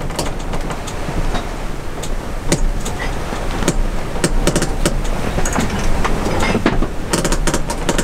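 Wind buffeting the microphone and water rushing along the hull of a heeled sailing yacht under sail, with frequent sharp knocks throughout.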